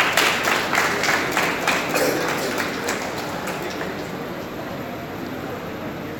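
Audience clapping, loudest and densest in the first couple of seconds and then dying away.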